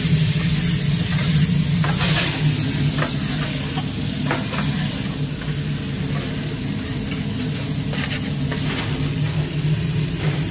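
Burger patties sizzling on a grill, with a few short clicks, over a steady low hum.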